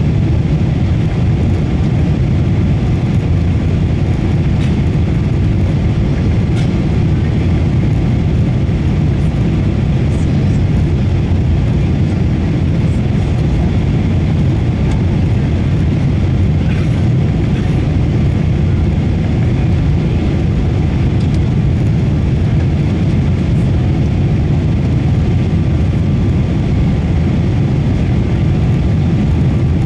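Steady low cabin noise inside a Boeing 777-300ER: its GE90-115B engines and the airflow over the fuselage, heard as a constant rumble through the cabin.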